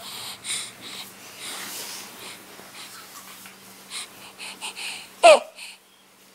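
Hiccupping: short breathy puffs, then one loud voiced hiccup with a falling pitch about five seconds in.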